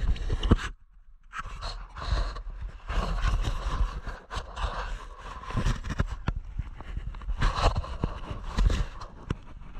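Irregular scuffing, rubbing and thumping right against the action camera's microphone, as something brushes over the covered lens while the camera moves. No motorbike engine is heard.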